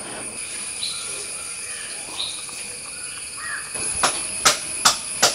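Crows cawing now and then over a steady high insect drone. Near the end comes a quick run of sharp clicks and crackles as banana leaves are handled against a steel plate.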